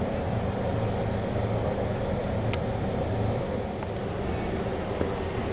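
Steady low rumble and hum of a cruise ship's machinery under way, with one brief click about halfway through.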